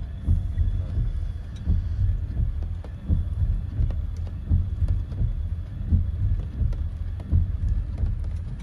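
Rain falling on a car's roof and windshield, heard from inside the cabin over a low, uneven rumble that swells every second or so.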